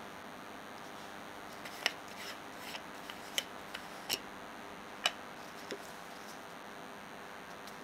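A string of small, irregular clicks and rubs from a plastic rear lens cap being twisted off a Pentacon auto 50mm f/1.8 M42-mount lens and the lens being handled, over a steady hiss.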